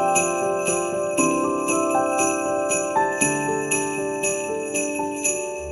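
Background music: jingle bells shaken on a steady beat, about three shakes a second, over sustained chords that change about once a second.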